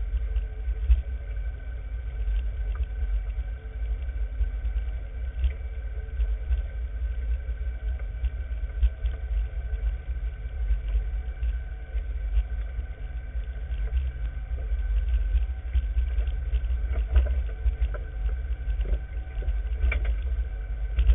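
Small off-road vehicle driving along a rough rocky trail: a heavy, uneven low rumble with a steady whine from the engine and drivetrain, and scattered knocks and rattles as it goes over stones and bumps.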